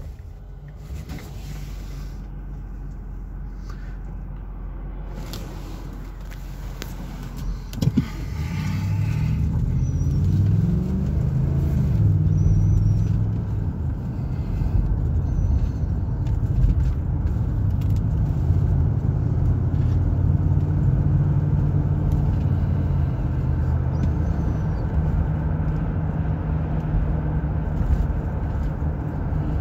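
Car engine and road noise heard from inside the cabin: a quiet low hum at first, a single knock about eight seconds in, then the engine rising in pitch as the car pulls away and accelerates, settling into steady driving noise.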